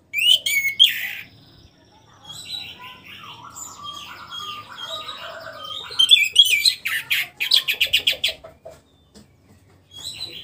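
Orange-headed thrush (anis merah) singing. A loud burst of bright phrases opens it, softer warbling follows, and about six seconds in comes a louder, rapid run of repeated notes lasting some two seconds. The bird is past its moult and starting to sing out fully again.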